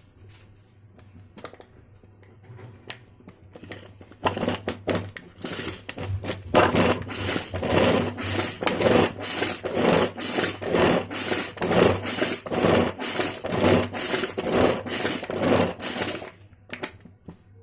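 Hand-pulled cord chopper being worked in rapid, repeated pulls, its blades whirring round and chopping tomatoes at about two pulls a second. The pulling starts about four seconds in after a few faint clicks and stops just before the end.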